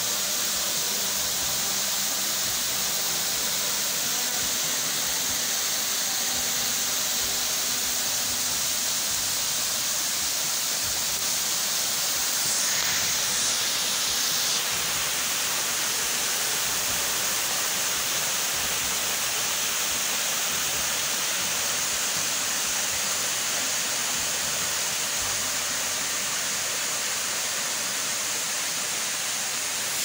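Waterfall rushing steadily as water pours down over rock close by, a constant full hiss.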